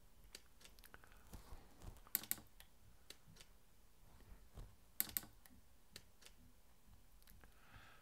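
Faint, sparse mechanical clicks over near silence, the loudest coming as quick double clicks about two and five seconds in.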